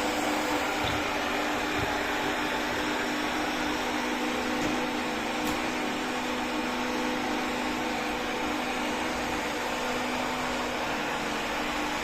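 Robot vacuum cleaner running steadily: an even whir of its suction motor with a steady low hum underneath.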